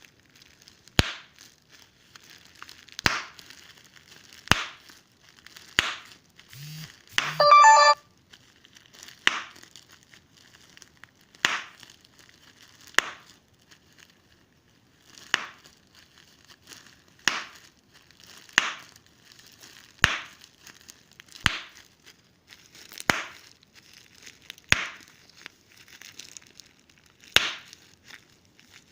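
Giant bubble wrap popping, one bubble at a time, a sharp pop every one to two seconds with faint crinkling of the plastic in between. About seven seconds in, a short, loud pitched sound cuts through.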